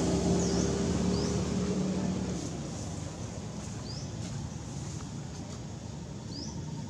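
A steady low engine drone over outdoor background noise fades away about two and a half seconds in. A few very short, high rising chirps are scattered through.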